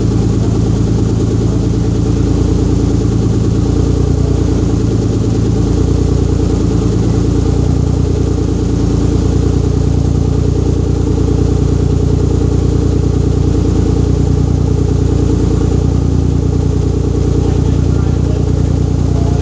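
Rebuilt Mitsubishi 6G72 twin-turbo V6 idling on its first start-up after the rebuild, the idle shifting a little in the first few seconds and then holding steady. No downpipe is fitted, so the exhaust is open straight after the turbos, which is why it sounds like butt.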